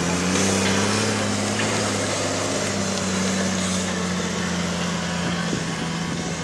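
The V8 engine of a three-wheeled monster truck chopper running at low speed as it drives by, a steady low engine note that lifts slightly at first and then eases down.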